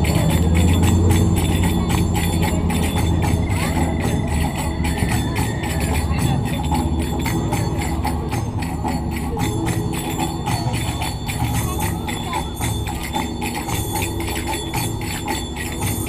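Rapid metallic jingling from belly dancers' costumes, over recorded dance music from a loudspeaker.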